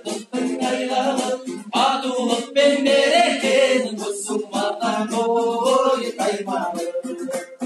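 A man singing a Kazakh song to his own strummed dombra, the two-stringed long-necked lute.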